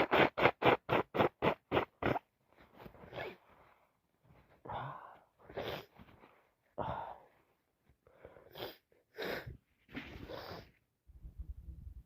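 A woman in a sneezing fit: a loud sneeze at the start, then a quick run of about eight short, sharp breaths over two seconds, and scattered sniffs and gasps after. Her nose is runny and itchy, from allergies or the start of a cold.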